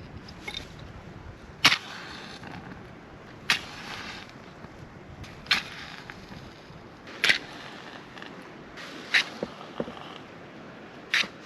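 A fire starter struck over and over in repeated attempts to light a campfire that won't catch. There are six sharp strikes about two seconds apart, each followed by a brief hiss.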